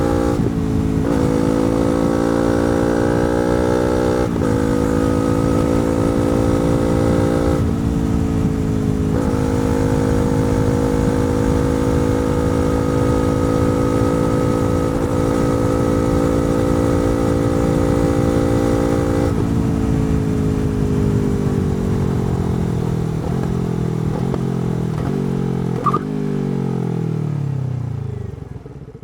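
Yamaha R3's 321 cc parallel-twin with a slip-on exhaust, under way: the engine note changes pitch abruptly several times in the first ten seconds as gears are changed, holds steady at speed, then falls away over the last several seconds as the bike slows. A single click sounds about 26 seconds in.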